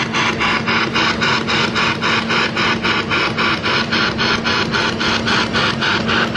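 Spirit box, a radio that sweeps rapidly through stations, chopping out static and snatches of broadcast in a fast, even rhythm of about six to seven bursts a second over a steady low hum.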